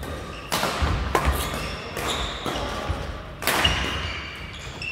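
Badminton rally: several sharp strikes of rackets on the shuttlecock, the loudest about three and a half seconds in, ringing in a large hall, with short high squeaks of shoes on the court floor.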